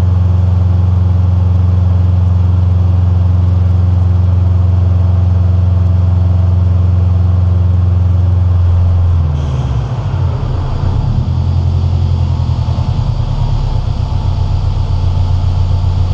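2005 Subaru Impreza WRX STI's turbocharged 2.5-litre flat-four engine running at a steady speed on a chassis dyno, turning the rollers. About nine seconds in it drops off and settles back to idle with a pulsing beat.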